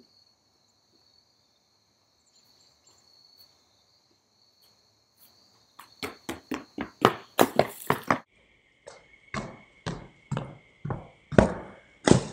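Running footsteps slapping on asphalt, coming closer, then hard stomps near the end as a water-filled plastic bag is smashed and bursts. A steady high chirr of insects runs underneath.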